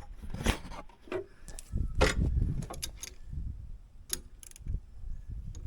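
Scattered clicks and knocks of hand tools against metal tractor parts, over low rumbling handling noise, while working at a hydraulic hose fitting.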